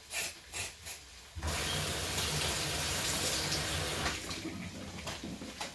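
A knife slicing carrots on a chopping board, a few even strokes; then, about a second and a half in, a kitchen tap is turned on and water runs steadily, a little lower for the last part.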